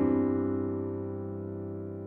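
Background piano music: one chord held and slowly fading.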